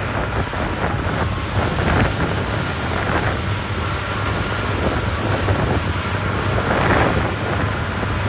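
Caterpillar D6R crawler bulldozer working: its diesel engine runs steadily with a low hum, under the squeal and clatter of its steel tracks. Louder noisy swells come about two, three and seven seconds in.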